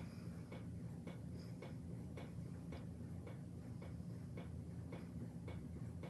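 Steady, evenly spaced ticking, a little under two ticks a second, over a low steady hum.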